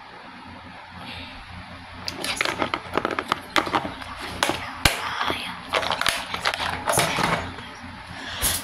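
Handling noise: a rapid, irregular run of clicks, knocks and rattles from small objects being picked up and moved, starting about two seconds in.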